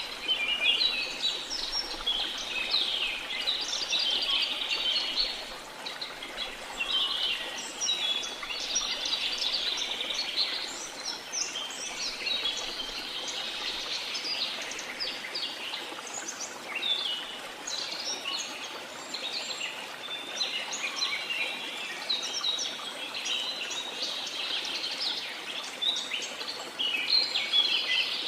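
Many small songbirds chirping and twittering at once in a dense, continuous chorus, over a steady even wash of sea noise.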